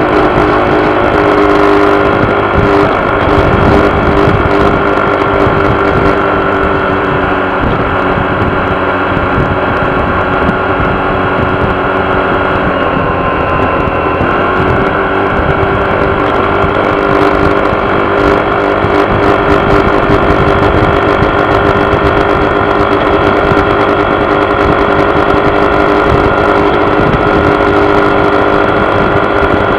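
Honda PCX scooter's single-cylinder engine running steadily, with the buzzing vibration the owner is chasing. Its pitch dips briefly and comes back up about halfway through.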